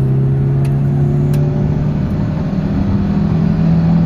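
Mitsubishi Lancer's 4G13 four-cylinder carbureted engine running on a test drive, its note steady and then rising in pitch about halfway through as it picks up speed. It runs without stalling now that the carburetor has been repaired.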